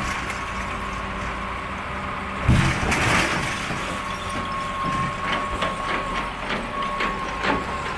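Heavy diesel earth-moving machines, an excavator and a wheel loader, running while they drag a wrecked truck, with a steady high whine over the engine rumble. There is a loud scraping crunch about two and a half seconds in and a few sharp knocks near the end.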